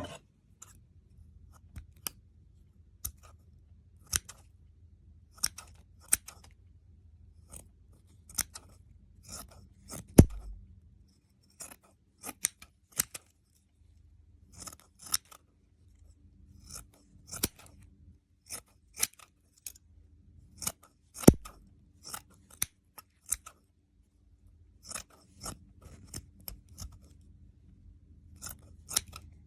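Scissors cutting through a mask: a series of separate, crisp snips at an uneven pace, with two heavier knocks about a third and two-thirds of the way through.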